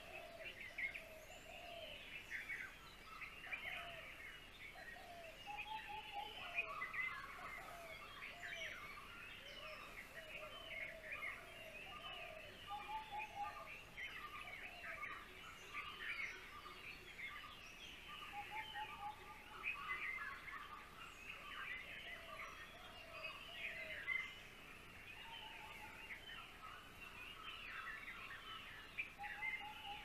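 A chorus of many birds chirping and calling at once: dense, overlapping short high notes with lower little trills mixed in, going on without a break.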